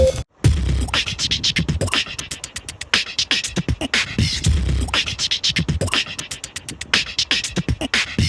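Beatboxing music: fast, rhythmic vocal percussion with deep low beats, starting after a brief break just under half a second in.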